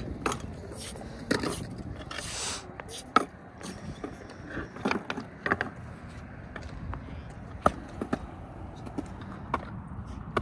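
Scattered skateboard clacks and knocks on concrete, with a brief rolling scrape of wheels about two seconds in.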